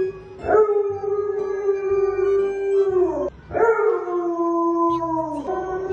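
Alaskan Malamutes howling together in long drawn-out howls, each held steady and then dropping in pitch at its end. A short break comes between howls, and a new howl starts near the end.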